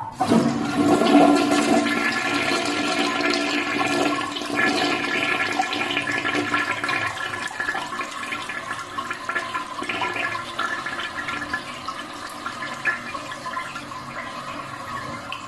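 Toilet flushing: a sudden loud rush of water right at the start, slowly fading over the following seconds.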